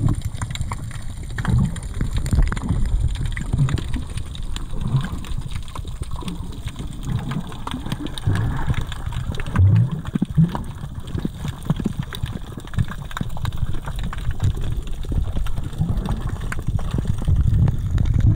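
Underwater sound picked up by a submerged camera: a steady low rumble of moving water, with gurgling and many small scattered clicks and crackles.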